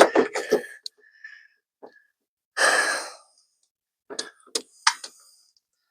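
A man's heavy breath out, like a sigh, near the middle, with a few light clicks before and after.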